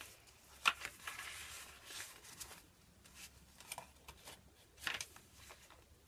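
Faint rustling of paper and card as a handmade junk journal is handled: tags and an envelope shuffled and a page turned. There are a few sharper paper snaps, the clearest just under a second in and near five seconds.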